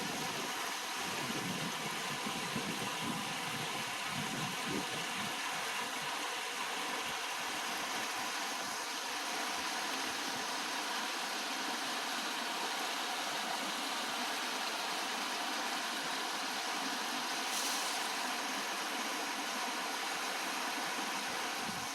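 Mountain valley stream rushing steadily over rocks, a constant hiss of flowing water.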